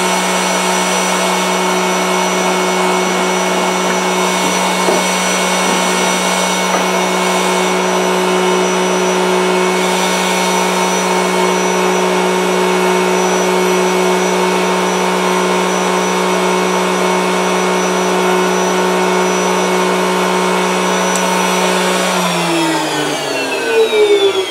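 Gunstock duplicating machine's spindle motor running steadily with a hum and a whine as it carves a walnut blank. Near the end the machine winds down, all its tones falling in pitch together.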